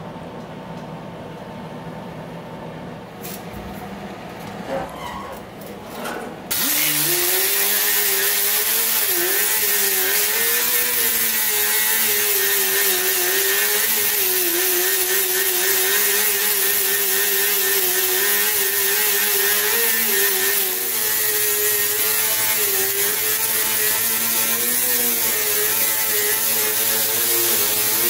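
Right-angle die grinder with a small sanding disc grinding down welds on a 1949 Chevrolet's steel body panel. It starts suddenly about six and a half seconds in, after a few seconds of quieter shop noise with a few knocks, and then runs steadily, its pitch wavering slightly as the disc is pressed on and moved over the metal.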